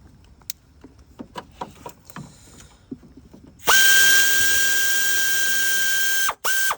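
Aircat long-neck 1/4-inch drive air ratchet spinning a bolt out, a loud steady air-motor whine with hiss for about two and a half seconds, then two short blips of the trigger near the end. Before it starts, a few light clicks and knocks.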